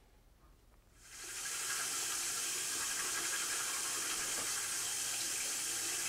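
Bathroom sink tap running steadily, starting about a second in.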